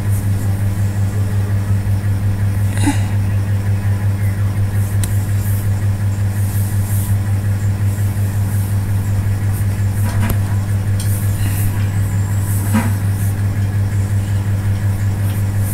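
A steady low hum, with a few faint clicks about three, ten and thirteen seconds in.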